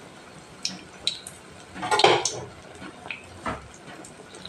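Malpua frying in hot oil in a kadai, a steady low sizzle, with a few light clinks and scrapes of a spatula against the pan, the loudest about two seconds in.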